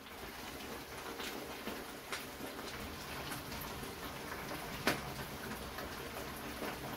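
Frying pan sizzling steadily with a fine crackle as turkey and mushrooms heat in teriyaki sauce, with a few light clicks and one sharper click about five seconds in.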